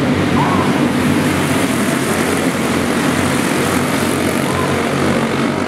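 A pack of racing go-karts' small engines buzzing together in a steady, continuous drone as they lap the track.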